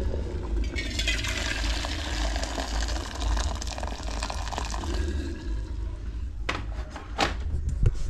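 Just-boiled water being poured out of a metal cooking pot (sufuria), a steady splashing pour lasting a few seconds, followed by a few sharp knocks near the end.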